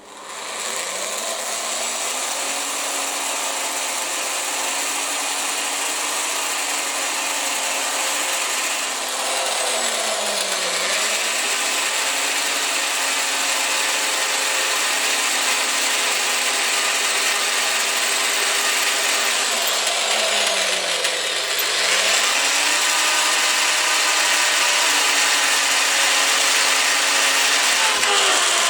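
Drill on a magnetic stand running continuously while drilling holes into a cast-iron lathe bed. Its motor pitch dips briefly and recovers twice, about ten and twenty-one seconds in.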